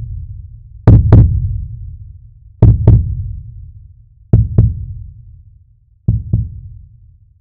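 Heartbeat sound effect: pairs of low 'lub-dub' thumps about every one and three-quarter seconds, four pairs in all, each fainter than the last, over a low rumble that dies away.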